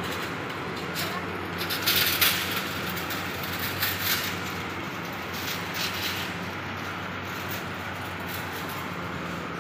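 City street ambience: a steady low mechanical hum with traffic noise, and a few brief clatters about two and four seconds in.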